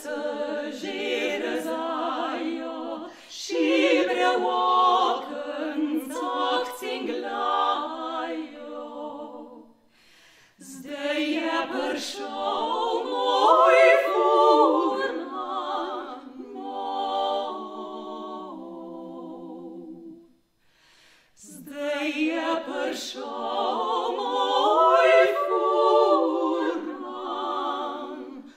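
Three women singing a Slovenian song a cappella in close harmony, in three phrases with a short breath-pause after the first and after the second.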